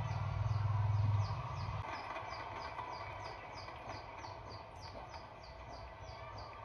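Short, high chirps repeating steadily, about three or four a second, each falling in pitch, over a low hum that drops away about two seconds in.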